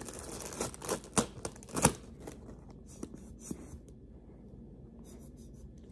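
Thin plastic packaging crinkling and tearing as a rubber bulb syringe is unwrapped, with several sharp crackles in the first two seconds. Near the end come about five short puffs of hissing air, in quick succession.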